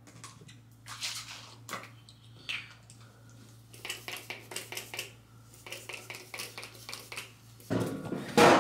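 A spray bottle spritzing onto box braids in a series of short sprays, several in quick succession about midway, with hands and braids rustling over a steady low hum. Near the end come loud bumps and rubbing as the camera is picked up and handled.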